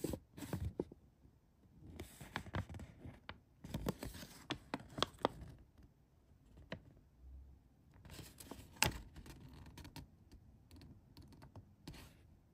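A folded paper instruction leaflet being unfolded and handled: crinkling paper rustles and small sharp clicks in scattered bursts, with short quiet gaps between.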